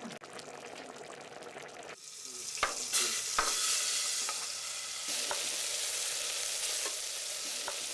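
Food sizzling as it fries in a pan. The hiss starts about two seconds in and holds steady, with a few clicks of a utensil against the pan.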